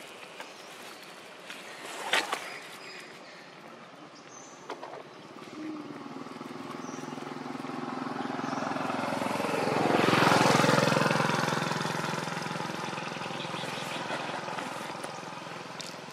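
A motor vehicle driving past: its engine noise swells to a peak about ten seconds in, then fades away. A short sharp click about two seconds in.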